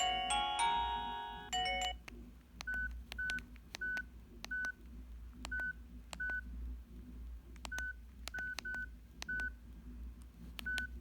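A mobile phone ringtone, a marimba-like melody from the phone's speaker, ends about two seconds in. Then comes a run of keypad presses, each a click with a short single-pitch key beep, about a dozen at uneven intervals.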